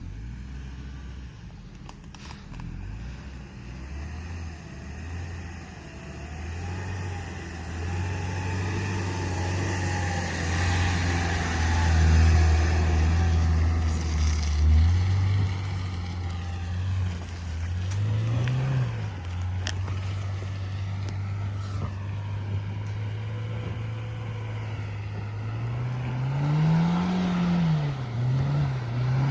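Lada Niva Travel's 1.7-litre four-cylinder petrol engine working hard under load on a steep, slippery mud climb. Its note rises gradually, with short bursts of revving about two-thirds of the way through and twice near the end.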